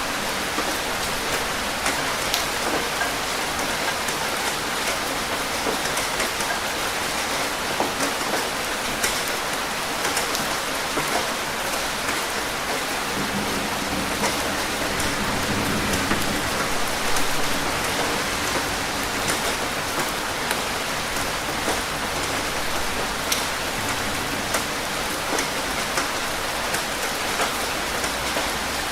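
Steady rain falling, with many individual drops pattering close by. A low rumble swells and fades about halfway through.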